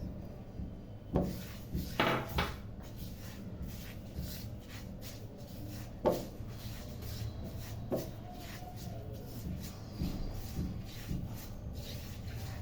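A wooden spoon rubbing and scraping around a cooking pan, with several sharp knocks against the pan.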